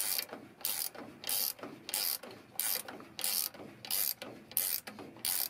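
Ratchet wrench clicking in even back-and-forth strokes, about one and a half to two strokes a second, as it winds the caging bolt into a truck's spring brake chamber to cage the park-brake spring.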